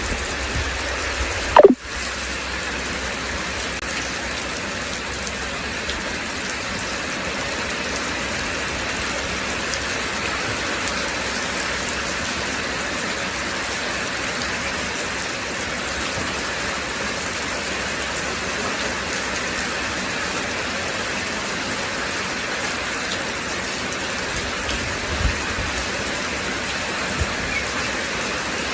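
Steady rain falling, an even hiss. About a second and a half in, a brief loud tone sweeps down in pitch.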